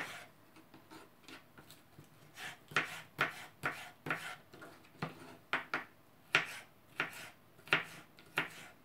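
Kitchen knife chopping fresh cucumber into small cubes on a wooden cutting board. The strokes are soft and sparse at first, then from about two seconds in come steadily at about two a second.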